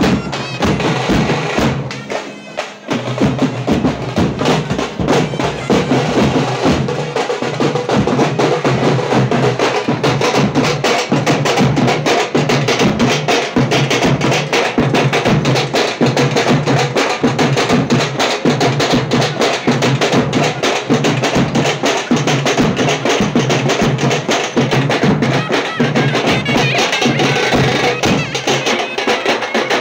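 A troupe of folk drummers playing a fast, dense, continuous beat with sharp strikes, as accompaniment for the Veeragase dance. It eases briefly about two seconds in, then carries on at full strength.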